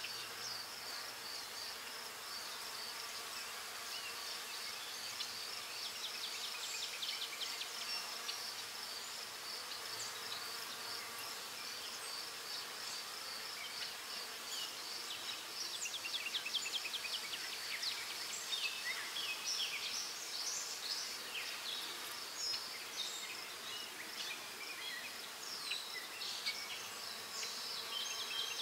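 Graphite pencil scratching on paper in quick, short strokes that come in bursts, as lashes and shading are hatched in around a drawn eye. Under it runs a steady, high, rapidly pulsing tone.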